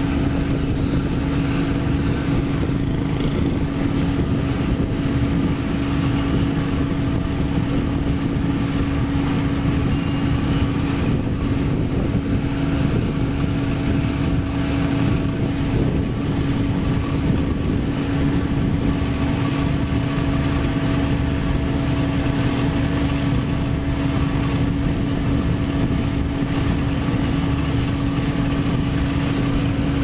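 Diesel engines of a Sumitomo HA60C asphalt paver and a tipping dump truck running steadily, a constant hum holding one strong, unchanging pitch.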